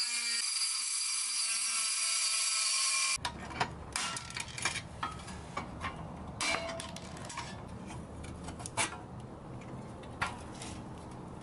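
Small rotary tool whining steadily as its grinding bit works on the pressed-steel toy's riveted hinge. After about three seconds it cuts to rougher grinding at a rivet, with irregular clicks and metal scrapes.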